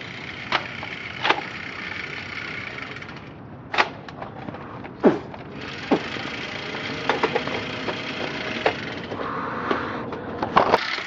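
A series of sharp clicks and knocks, about a dozen at irregular intervals, over a steady rushing hiss.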